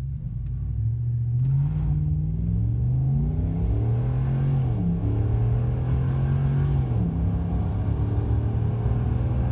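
5.7-litre Hemi V8 of a RAM pickup at full throttle on a 0-60 mph run, heard from inside the cab. The pitch climbs, drops back at each upshift, about two, five and seven seconds in, and climbs again.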